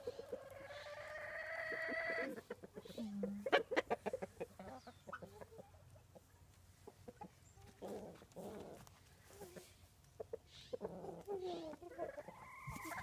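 Backyard chickens clucking at intervals, with one long, slightly rising call over the first two seconds.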